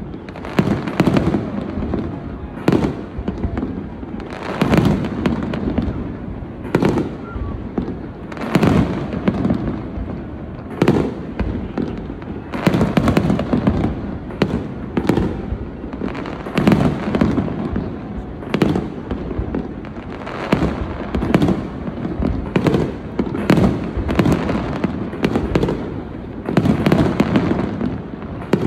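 Aerial firework shells going off in quick succession: dozens of sharp bangs, often several a second, over a continuous low rumble of overlapping booms and echoes.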